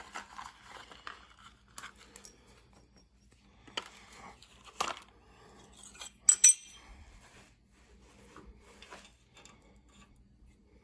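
Small steel rivets and sickle parts clinking and tapping as they are handled and fitted in place, with a few sharper metallic clinks near the middle.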